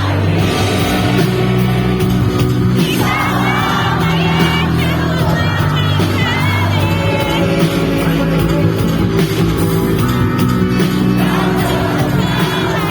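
Live pop-rock band playing, with a sustained bass line, and a singing voice carrying the melody from about three seconds in.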